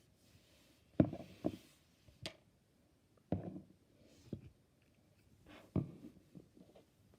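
Toy figures being handled and set down on a hard surface: about six short, sharp clacks and knocks at irregular intervals.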